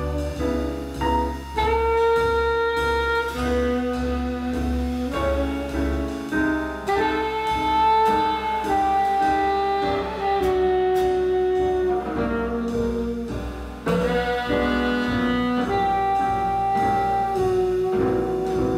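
Live jazz quartet: alto saxophone plays a melody of long held notes over double bass, piano and drums.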